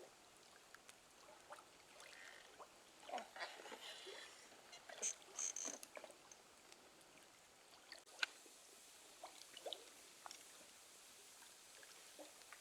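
Quiet night outdoors with faint, scattered short clicks and pops, a few louder ones in the middle.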